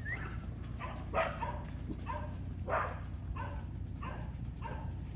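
A dog barking over and over, a steady run of about nine short barks, roughly one every half second or so, over a low steady rumble.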